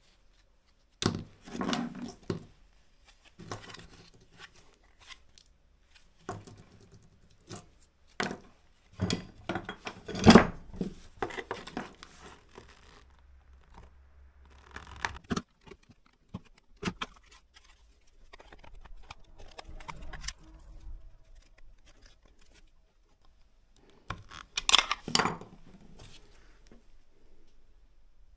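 Parts of a dismantled electric water pump being handled and pried apart by hand and with a tool: irregular knocks, clicks and rattles of hard plastic and metal. The loudest knock comes about ten seconds in, with another cluster near the end.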